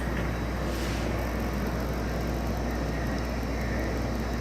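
Harig 618W hand surface grinder's 1 hp, 3450 RPM spindle motor running steadily: a low, even hum with a constant whir, running nice and quiet.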